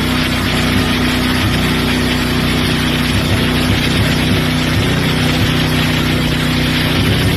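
A steady engine drone, unchanging in pitch, under a constant rushing noise.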